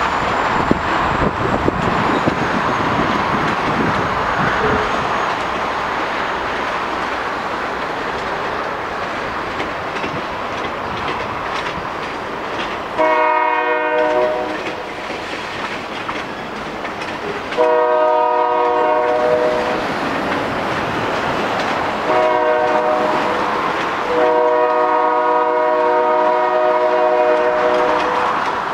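Freight train of wood-chip and log cars rolling past with wheels clicking over rail joints. About halfway through the locomotive horn sounds four chord blasts, the second and last held longer, as in a grade-crossing signal.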